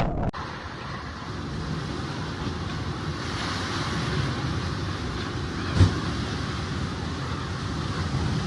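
Hurricane wind blowing hard and steadily, with one sharp thump about six seconds in.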